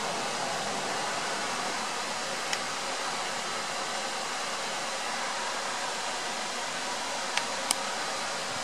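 Light rain falling: a steady, even hiss, with one sharp tick about two and a half seconds in and two more close together near the end.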